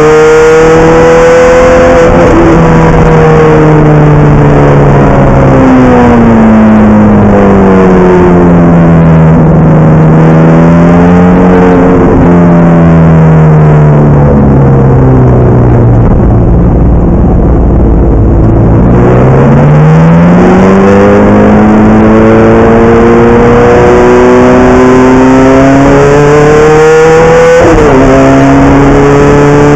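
The Ferrari F430 GT's V8, heard loud from inside the cabin at racing speed. The revs drop sharply on an upshift about two seconds in, then fall slowly for about ten seconds, dipping to a low, muffled note off the throttle. They climb steadily under full acceleration, and another upshift near the end drops them suddenly.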